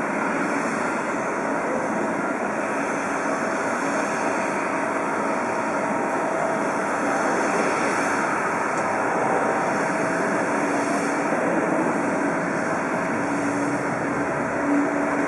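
Boeing 777 airliner's jet engines running at taxi power: a steady rushing whine, with a low hum that grows stronger near the end.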